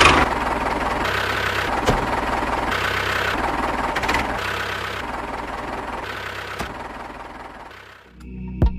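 An engine running with a fast, even pulse, fading away over its last few seconds and stopping near the end.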